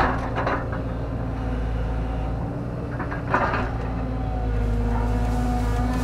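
JCB JS130 tracked excavator's diesel engine running steadily under load as the hydraulic boom and bucket dig a trench. Two sharp metallic clanks come from the digging arm, one right at the start and one about three seconds in.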